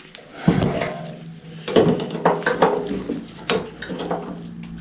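Irregular knocks and clatters of metal snow-blower parts being handled as a new drive belt is forced onto its pulley on an Ariens ST824 snow blower.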